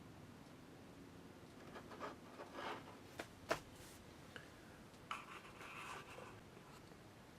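Faint handling sounds of small model parts and tools at a workbench: light rubbing and scratching, with a couple of sharp little clicks about three seconds in.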